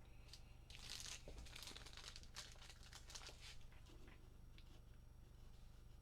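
Faint crinkling and rustling of plastic card packaging being handled, in a quick cluster over the first few seconds and thinning out after.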